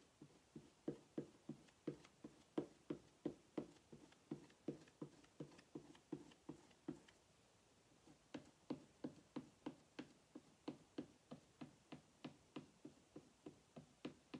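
Small squeegee scraping chalk paste back and forth over a silkscreen transfer on a wooden sign: faint, quick short strokes about three a second, pausing for about a second just past the middle before going on.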